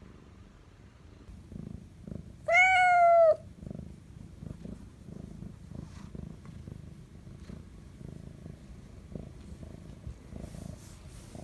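A domestic cat purring close by in a steady pulsing rhythm, with one loud meow about two and a half seconds in.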